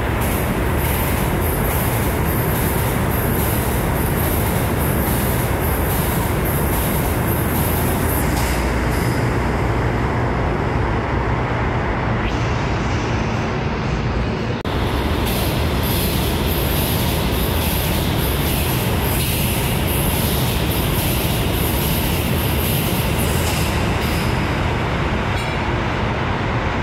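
New York City Subway train running on the rails: a loud, steady rumble and rattle of wheels on track, with a high-pitched whine that fades out for about two seconds midway and then returns.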